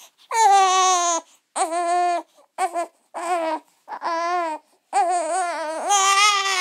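Newborn baby crying: about six wails, the first starting just after the beginning and the last and longest near the end, each held at a high, fairly steady pitch with short gaps for breath.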